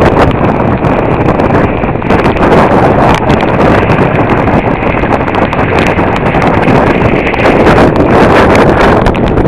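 Loud wind buffeting the camera microphone: a steady rumbling rush broken by rapid, uneven crackling thumps.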